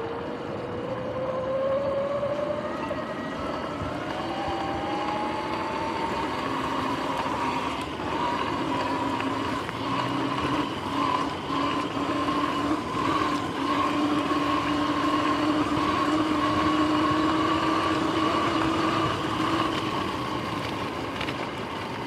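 Sur-Ron X electric dirt bike's motor and drivetrain whining, rising in pitch as the bike pulls away and then holding steady at speed, over tyre and wind noise.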